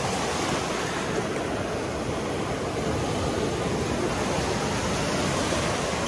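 Caspian Sea waves breaking and washing up onto a shell beach: a steady rush of surf.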